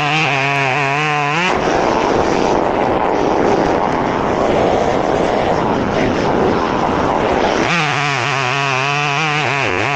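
Chainsaw engine running close by. For about six seconds in the middle it changes to a dense, harsh noise as the saw cuts into the dead pine, then goes back to its wavering engine note near the end.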